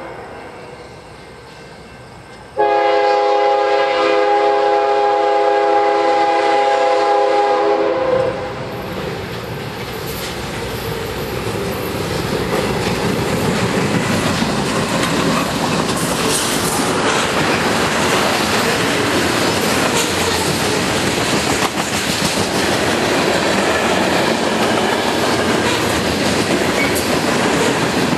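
CN train's locomotive air horn sounding a chord of several notes: the end of one blast fading, then a second long blast of about five and a half seconds. It is followed by the train passing close by, a loud rumble with the clickety-clack of wheels over rail joints.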